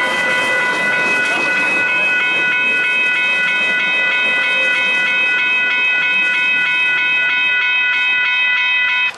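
Guadalajara light rail train rolling past on street-level track, with a steady high-pitched tone over it. About two seconds in, the tone starts pulsing rhythmically, and it cuts off suddenly at the end.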